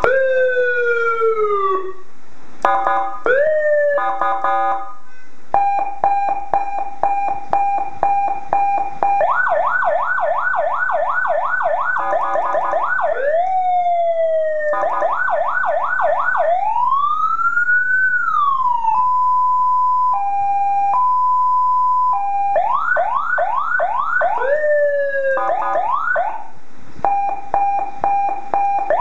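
SENKEN 100BD electronic police siren sounding loudly through its horn speaker, switched through a series of tones every few seconds: falling sweeps, fast repeated yelping sweeps at about three or four a second, steady pulsed tones, a slow rising-and-falling wail, and a two-note hi-lo alternation.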